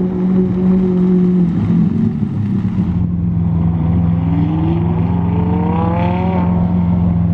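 Lamborghini supercar engines. One engine idles steadily close by, while the green Lamborghini accelerates round the cone course: its pitch rises for about two seconds and breaks off about two-thirds of the way in.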